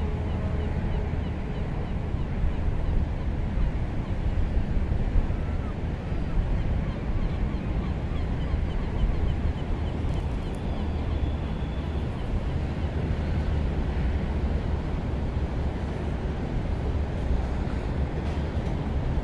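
A ship's engine running with a steady low rumble under a constant wash of water and wind noise as the ship gets under way.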